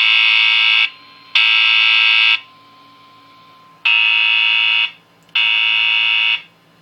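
Fire alarm sounding the temporal-three evacuation pattern: loud, buzzy one-second tones with half-second gaps, three to a group, and a pause of about a second and a half between groups.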